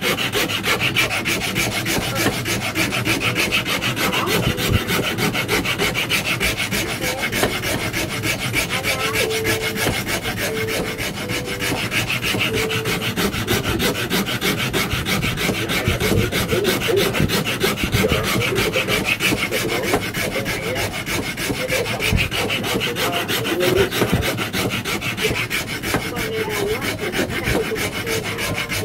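Hand file rasping back and forth over a solid-wood handle blank in steady, rapid strokes with no break, shaping a penhold table-tennis racket handle.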